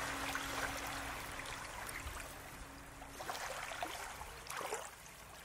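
Faint trickling and gurgling of a stream, with small splashes. A low held tone fades out in the first few seconds.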